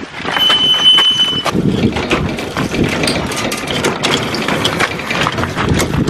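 Boat trailer being hand-pulled: a high steady squeal for about a second near the start, from its sticking brakes, then the rattle and rumble of the trailer rolling over gravel, with a vehicle engine idling underneath.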